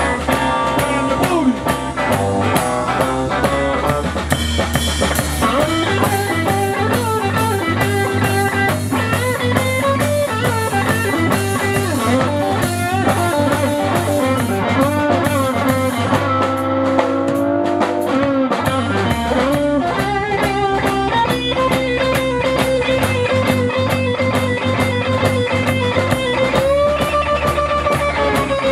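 Blues-rock band playing: an electric guitar lead with bending notes over bass and drum kit.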